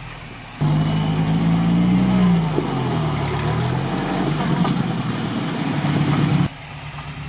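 Off-road vehicle engine running under load while a GAZ-69 is pulled out of a deep ford, its pitch holding and then dropping and wavering. The sound comes in suddenly about half a second in and cuts off near the end.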